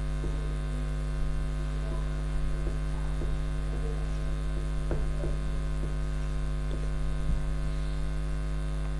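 Steady electrical mains hum, with a few faint taps and scratches of a marker writing on a whiteboard.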